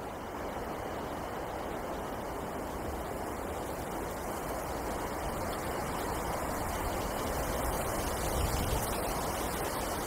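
Wind blowing through a forest, a steady rushing that slowly grows louder, with a stronger gust near the end.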